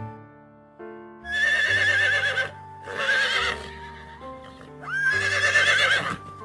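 A horse whinnying three times, each a loud call with a wavering pitch, the last ending with a shake, over background music.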